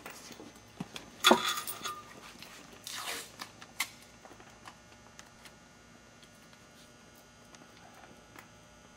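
Masking tape being pulled off the roll and torn: a loud rasping rip about a second in and a second, shorter one around three seconds in, followed by a sharp click and small ticks and rustles as the strip is pressed onto a concrete floor.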